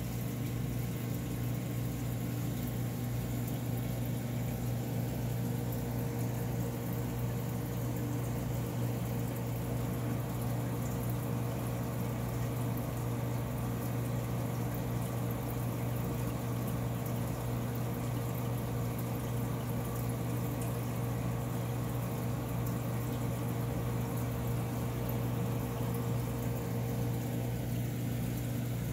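Aquarium filter pump running steadily: a constant low hum with the wash of moving water over it.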